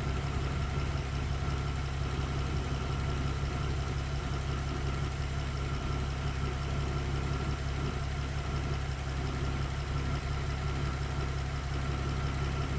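Car engine idling steadily, with a faint steady high whine over it. The engine has a misfire logged on cylinder 4 and an intermittent P0300 random-misfire code.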